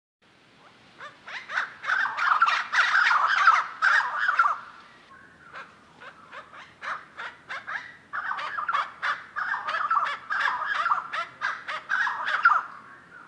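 Rapid, dense chattering songbird calls, many quick sharp notes in two loud bouts with sparser notes between: sunbird and bulbul recordings used as a speculative reconstruction of the calls of the small feathered dinosaur Microraptor hanqingi.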